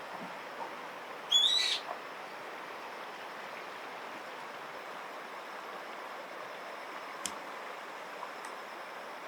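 A spot-billed duckling gives a single loud, high peeping call lasting about half a second, over a steady background hiss. A short click follows near the end.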